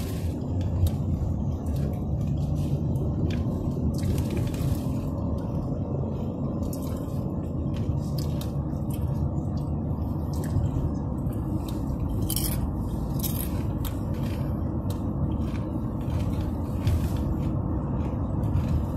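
Steady road and engine rumble inside a moving car's cabin, with short crunches scattered through it from chewing tortilla chips.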